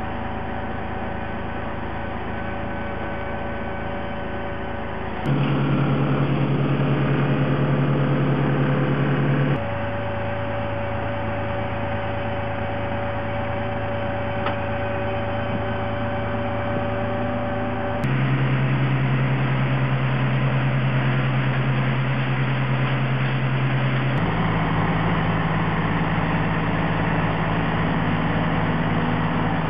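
Heavy engine running at a steady speed throughout. Its pitch and loudness jump abruptly four times, each jump marked by a click.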